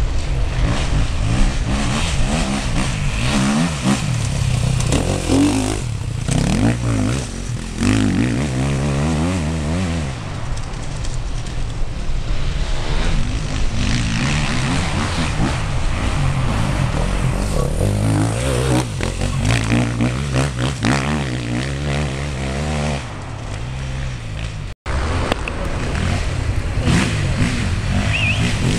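Enduro motorcycle engines revving hard as riders pass, one after another, the engine pitch climbing and dropping with throttle and gear changes. The sound cuts out for an instant near the end.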